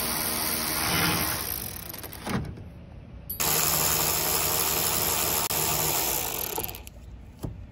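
Cordless electric ratchet running in two runs, the first fading out about two seconds in and the second starting suddenly about three and a half seconds in and holding steady for about three seconds, as it backs out the bolts that hold a van's quarter-window frame.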